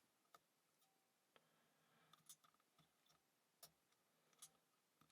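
Near silence broken by about seven faint, scattered metal clicks. These are a lock pick and tension tool working the pins inside a wet, rusty padlock's keyway.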